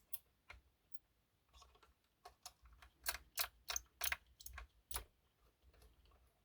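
Irregular small clicks and taps of a model locomotive's body being handled and its screws driven back in with a small screwdriver, with a cluster of sharper clicks between about two and five seconds in.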